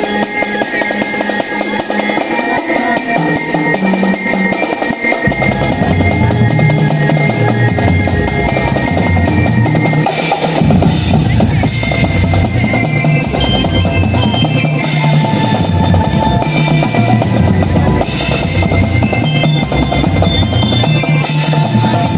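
Marching band playing: a bell-like glockenspiel melody over snare drum strokes and rolls, with a low bass part coming in about five seconds in.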